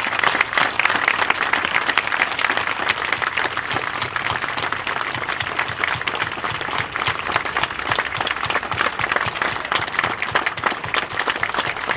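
Large crowd applauding, dense and steady clapping throughout.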